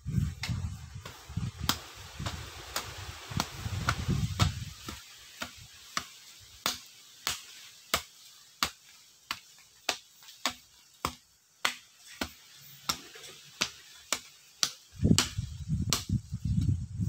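Long-handled hoe chopping into loose soil: bursts of dull thuds, heaviest in the first four seconds and again near the end. A regular sharp clicking, about one and a half clicks a second, runs through.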